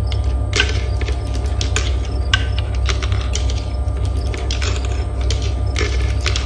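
Marbles rolling down a marble-run track, clicking and clacking against the pieces a few times a second in an irregular patter over a steady low rolling rumble.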